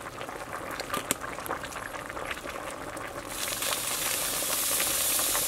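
Braised pork leg and bamboo shoots simmering in a pot: bubbling with many small pops and crackles. A louder, steady hiss comes in a little past halfway.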